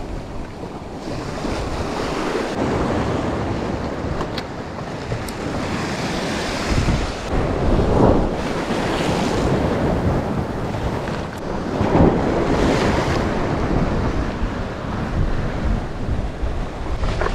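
Surf washing against a rocky shore, surging up every few seconds, with wind buffeting the microphone.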